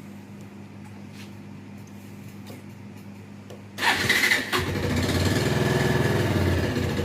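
Bajaj Pulsar 150 single-cylinder four-stroke engine being started about four seconds in, catching suddenly and settling into a steady idle. It carries the internal engine noise that the owner calls crank-like, which is quieter at idle than under load.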